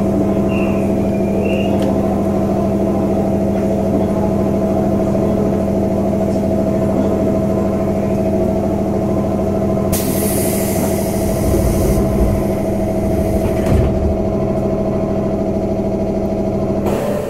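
A JR 201 series chopper-controlled electric commuter train running, heard from inside the car: steady humming tones over the rumble of wheels on rail. About ten seconds in there is a hiss lasting about two seconds, and near the end a short loud burst of noise.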